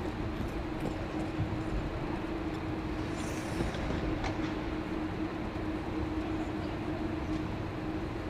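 Steady hall ambience: a constant low hum over an even background noise, with a few faint knocks and a brief hiss about three seconds in.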